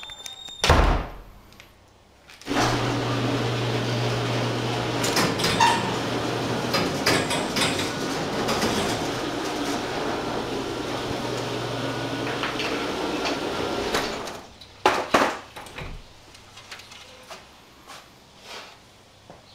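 Garage door opener running for about eleven seconds: a steady motor hum under a noisy rattle, starting about two and a half seconds in and cutting off suddenly. A loud thump comes about a second in, and two sharp door knocks follow just after the motor stops.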